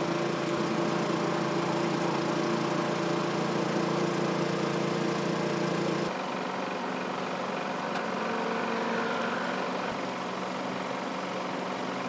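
A motor or small engine running with a steady hum; the hum changes abruptly about six seconds in and continues slightly quieter.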